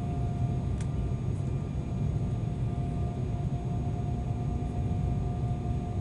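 Cabin noise inside an Embraer 190 airliner on approach. Its turbofan engines and the airflow make a steady low rumble, with a thin steady whine over it.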